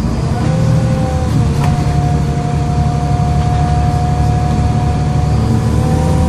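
Volvo B7LA bus diesel engine running under way with a high whining whistle, taken for its turbo, over the low engine rumble. The whine rises in pitch near the start, holds steady, and rises again near the end.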